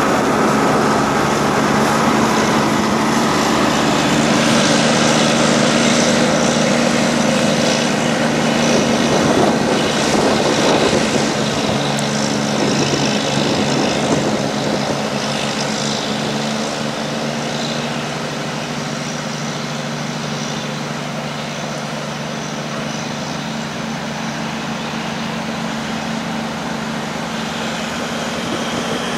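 Heavy diesel prime movers hauling an oversize mining dump-truck load, engines running under load with a steady low drone and tyre noise as they pass and draw away. The sound eases off somewhat in the second half.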